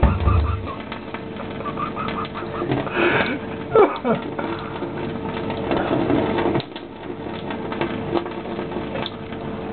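Tap water running in a thin stream and pattering onto a cat's wet fur as he drinks from it, with a brief louder sound about four seconds in.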